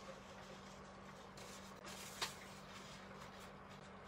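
Quiet room tone with a steady low hum, and a soft scratchy rustle about two seconds in that ends in a single light click: a watercolour brush working on paper.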